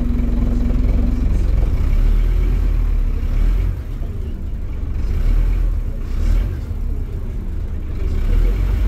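Scania Visionaire double-decker bus running along the road, heard from inside the lower deck as a steady low engine and road rumble. A steady hum stops about a second in, and the rumble eases briefly twice.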